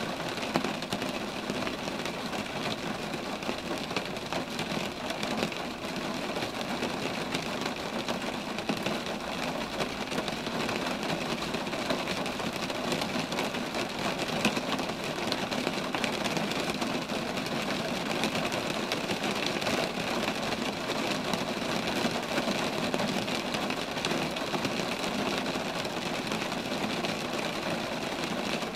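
Steady rain falling on roadside trees: a dense, even patter of drops.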